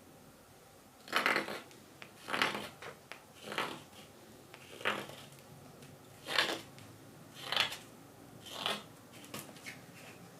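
Hook knife cutting into green wild cherry wood as a spoon bowl is hollowed: about eight short scraping cuts, roughly one a second.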